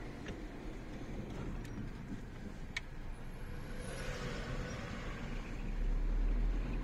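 Car on the move: a steady low rumble of engine and road noise, with a few faint clicks in the first few seconds.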